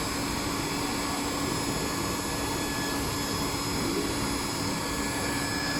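Hot air banner welding machine's blower running steadily with a constant hum and whine, the heater switched off so that it blows the hot-air nozzle cool.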